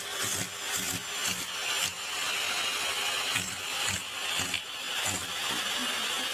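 Vacuum cleaner running with a steady rushing noise that swells and dips in level every second or two.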